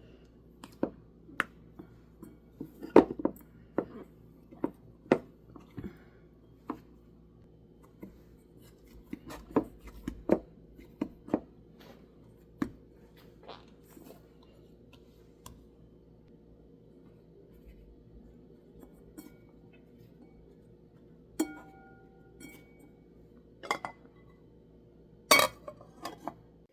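Kitchen utensils clinking and tapping against glass and metal dishes, a scatter of sharp separate clinks with a few louder ones near the end, over a low steady hum.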